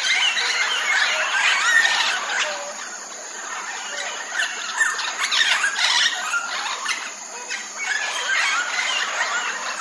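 Flock of red-tailed amazon parrots (Amazona brasiliensis) calling together: a dense chatter of many overlapping squawks and squeals, easing a little about three seconds in and again near seven and a half seconds.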